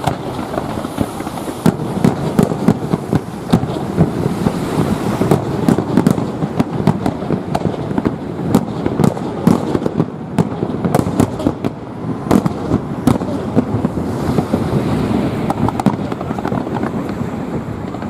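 Fireworks display: a rapid, irregular string of sharp bangs and crackling bursts over a continuous low rumble.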